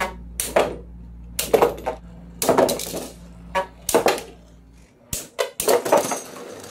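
Beyblade Burst spinning tops clashing in a plastic stadium: sharp, ringing clinks and clatters as they collide and knock off the rails, coming in quick clusters about once a second.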